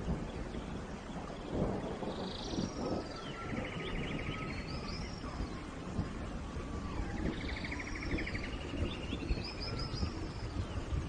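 Forest birds singing. One song, a high chirp followed by a rapid buzzy trill, comes twice about five seconds apart, with lower wavering whistles between, over a steady low background noise.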